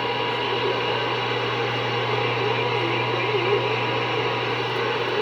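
CB radio receiver putting out steady static hiss with a constant low hum underneath, an open channel with nobody talking.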